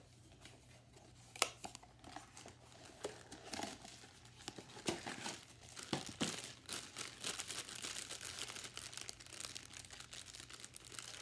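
Blind-box toy packaging being torn open and unwrapped by hand: a run of rustling and crackling with sharp clicks, busier in the second half.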